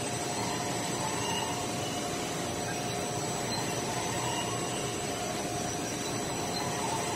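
Denim dyeing and sizing machinery in a textile mill running steadily: an even industrial machine noise with constant whining tones, and a faint higher note that comes back about every three seconds.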